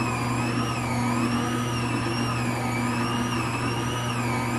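Nutrimill Artiste stand mixer running at speed 2, its dough hook kneading bread dough: a steady motor hum under a high whine that wavers slightly in pitch about once a second.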